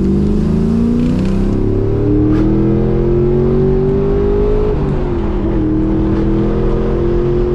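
Chevrolet Camaro SS V8, fitted with heads, cam and a Magnaflow cat-back exhaust, heard from inside the cabin while being driven. It pulls with its pitch slowly rising, drops about five seconds in, then runs steady.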